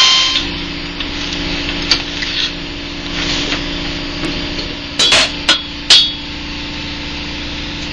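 A few sharp metallic knocks and clinks, loudest in a cluster about five to six seconds in, from tools working on the main bearing caps of a Chevy 327 V8 block during teardown, over a steady low hum. A power tool's whir cuts off just at the start.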